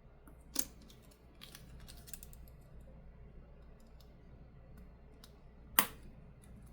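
Small sharp clicks of a smartphone's screen flex-cable connector being pressed onto its board socket, two distinct clicks, the second near the end the loudest, with a few faint ticks of handling between. The connector is damaged and only barely makes contact.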